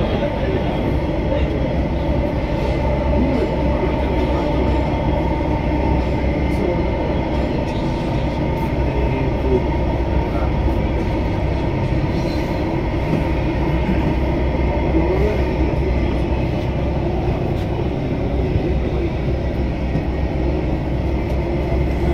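Delhi Metro train running at steady speed between stations, heard from inside the carriage: a continuous low rumble of wheels on rail and traction motors.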